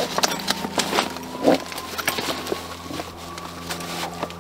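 Webbing straps being pulled and cinched on a canvas chainsaw bag, with irregular clicks and knocks from the buckles and hardware and one louder thump about a second and a half in, over a faint steady hum.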